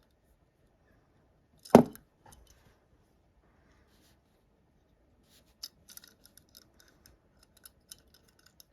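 Small die-cast toy cars handled on a hard surface: one sharp knock a little under two seconds in, then a scatter of light clicks and taps through the second half.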